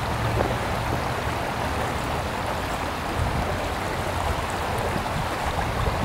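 Shallow creek running over a rock shelf and riffle: a steady rush of flowing water.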